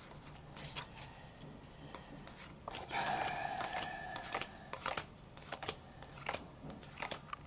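Pokémon trading cards handled one at a time, with quick light snaps and slides of card on card as each card is moved from the back of the pack to the front. A short steady hum comes in about three seconds in and fades out about a second and a half later.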